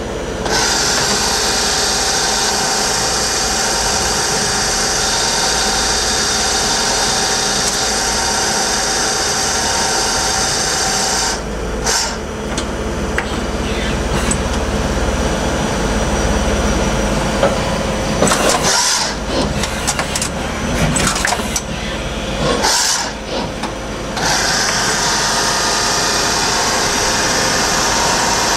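Tsugami BU26-SY Swiss-type CNC lathe running through its machining cycle: a steady whirring hiss, broken by several short lulls and changes in tone between about 11 and 24 seconds in, then steady again.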